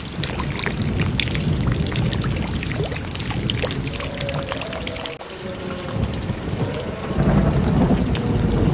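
Rainwater pouring from above into a basin already full of water, splashing and churning steadily. About five seconds in it gives way to heavy rain falling and streaming off the roof edge, louder near the end.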